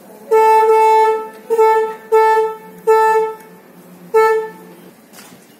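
A vehicle horn honking five times at a steady pitch: one long blast of about a second, then four short ones.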